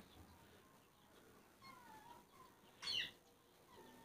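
Faint, high animal calls with gliding pitch: a soft one about two seconds in and a louder, brighter one about three seconds in.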